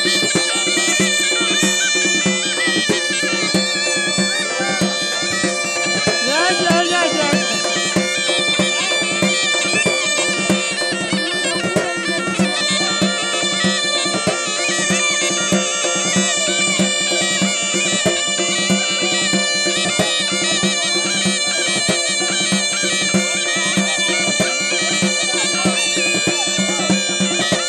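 Zurna-and-drum folk music: a reedy double-reed pipe plays a melody over a steady held drone, driven by a quick, regular drumbeat.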